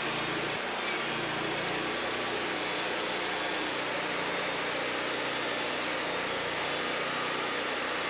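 Wood-Mizer LT40 portable band sawmill running steadily, its engine and blade sawing a pine cant into boards. The deep low end of the engine drops away about four seconds in.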